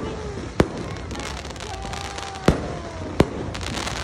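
Aerial fireworks display: three sharp bangs of bursting shells over a continuous crackle of glittering stars.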